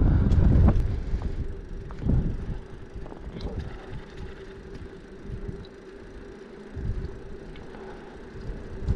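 Wind buffeting the microphone of a moving touring bicycle, strong for the first second or so, then easing to a lighter, gusting rumble. A faint steady hum runs underneath.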